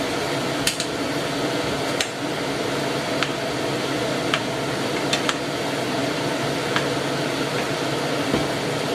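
Light, scattered clicks of a metal spoon and a wooden spoon against a frying pan as pieces of squid are moved about in tomato sauce, over a steady rushing background noise.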